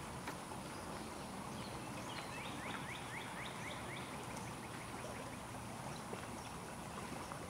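Steady outdoor ambience with a bird singing a quick run of short rising notes, about five a second, starting about two seconds in and lasting about two seconds.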